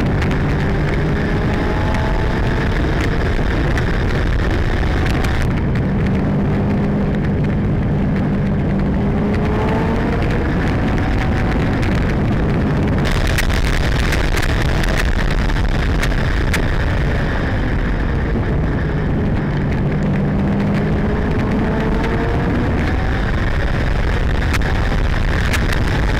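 Racing sidecar outfit's engine heard onboard at speed, its pitch rising again and again as it accelerates, over constant wind noise on the microphone.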